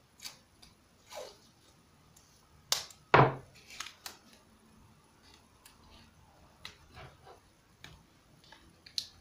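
Blue painter's masking tape being pulled off the roll in short rips and handled with a few sharp clicks, the loudest rip about three seconds in.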